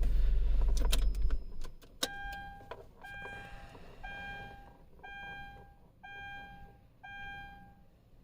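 Car keys clicking and jingling at the ignition as a low rumble stops, then the 2011 Kia Sorento's dashboard warning chime sounds six times, one steady tone about once a second.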